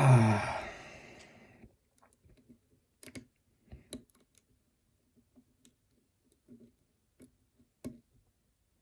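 Sparse, irregular clicks of a lock pick and tension wrench working the pins inside a pin-tumbler challenge lock. A brief sigh is heard at the very start.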